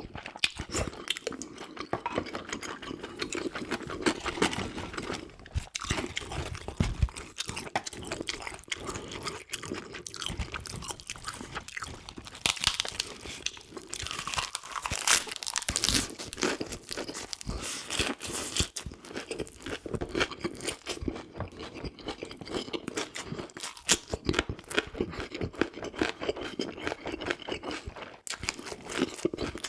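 Close-miked chewing and crunching of food in the mouth, with irregular crisp crunches and wet chewing.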